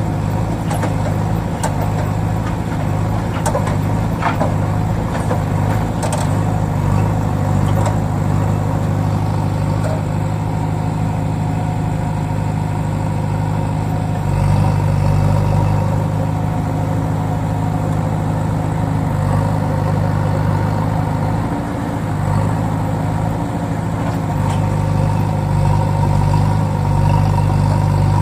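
A vehicle engine running steadily at idle, holding one even pitch, with a few light clicks in the first few seconds.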